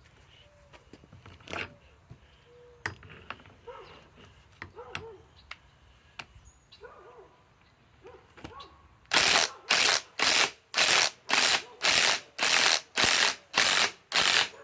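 Ryobi PSBIW25 cordless impact wrench run in short trigger bursts, about two a second, about a dozen times in all, working a stuck fastener back out of wood. Before that, only scattered clicks and knocks of handling.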